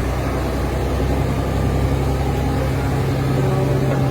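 Fishing boat's engine running steadily, an even low drone with no change in speed.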